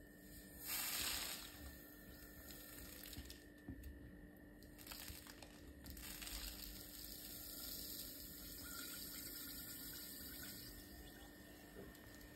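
Granulated sugar pouring from a plastic measuring jug into a glass jar of lemon juice: a faint hiss of sliding, falling grains, with a louder rush about a second in.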